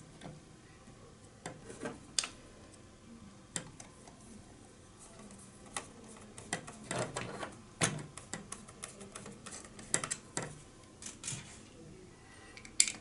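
Scattered clicks, taps and light knocks of hard plastic parts being handled and pressed together: a battery holder being wiggled onto a weather-station sensor housing and its screws set in place, with a busier run of clicks in the middle.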